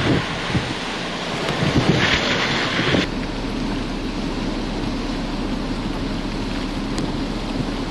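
Hurricane-force wind and rain. Gusts buffet the microphone in uneven surges; about three seconds in the sound changes abruptly to a steadier rush of wind and rain.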